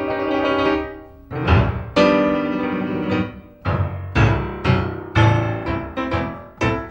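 Piano music: struck chords in a steady beat, with a short break about a second in.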